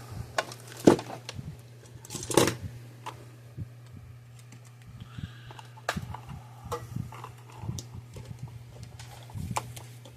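Bench-work handling noises: scattered small clicks and knocks of parts and tools being handled, the two loudest about one second and two and a half seconds in, over a steady low hum.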